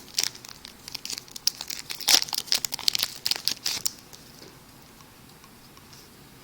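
Plastic wrapper of a baseball card pack being torn open and crinkled, a dense crackling that stops about four seconds in.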